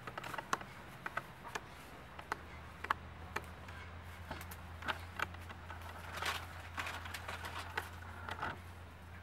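Irregular crunches and crackles of bare feet walking through dry grass and fallen palm leaves, over a faint low steady hum.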